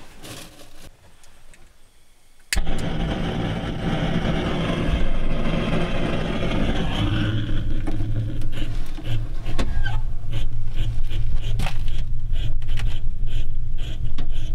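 A portable gas torch is lit with a sharp click about two and a half seconds in, then burns with a steady hiss and low hum into the firebox of a small metal wood stove to light the firewood. From about eight seconds on, short crackles and snaps come in over the hiss.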